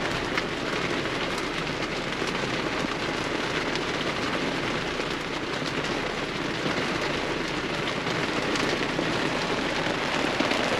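Heavy rain pouring down, a steady hiss of downpour.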